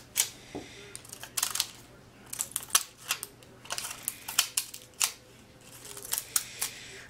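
Multi-bladed shredder scissors snipping up the thin magnetic disk from a floppy disk: a run of short, sharp snips at irregular spacing, sometimes several in quick succession.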